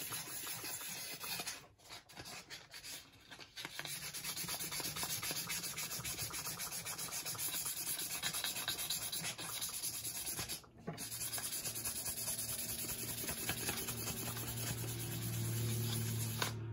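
Sandpaper rubbed rapidly back and forth by hand over the steel face of a small bench anvil, a dense scratchy rasping that breaks off briefly three times. The sanding is taking the rust coating off to show the metal beneath.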